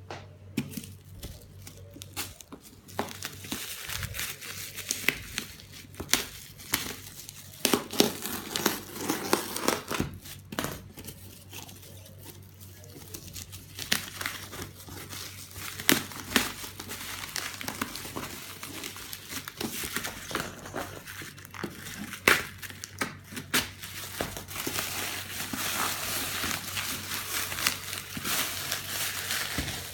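Keyboard packaging being opened and handled: crinkling and tearing of wrapping, with scattered sharp knocks and taps, over a faint steady low hum.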